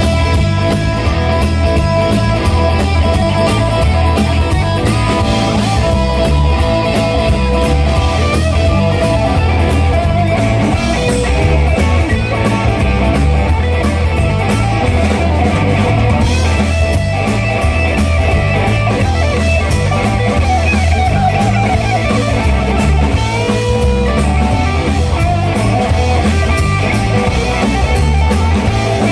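Live rock band playing an instrumental passage: two electric guitars and an electric bass over a steady drum-kit beat, with no vocals.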